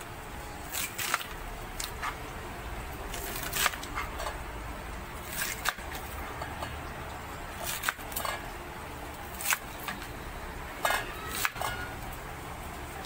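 Chef's knife chopping water spinach (kangkong) stems and leaves on a plastic cutting board: about a dozen short, sharp cuts at an irregular pace, some in quick pairs.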